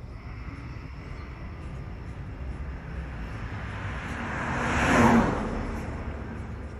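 A vehicle passing by: a rushing noise that swells for a few seconds, peaks about five seconds in, then fades.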